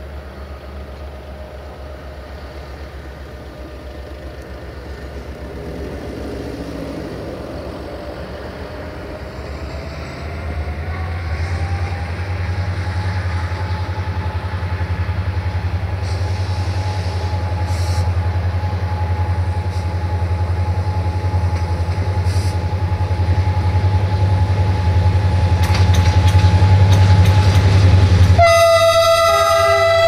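GM diesel locomotives pulling in, their engines working harder with a steady low rumble and a faint rising whine, and a few clacks over rail joints. About a second and a half before the end, a loud multi-tone locomotive horn starts to sound.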